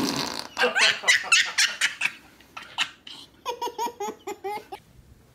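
Laughter: a burst of hearty laughing in the first two seconds, then a run of quick, evenly spaced high-pitched giggles, about four a second, from about three and a half seconds in until nearly five.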